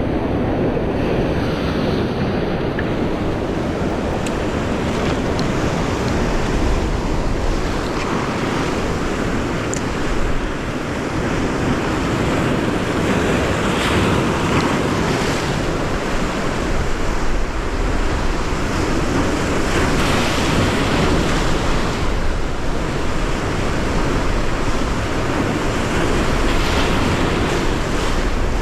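Sea surf washing over a rocky shore, a steady rushing wash that surges louder every several seconds as waves break, with wind buffeting the microphone.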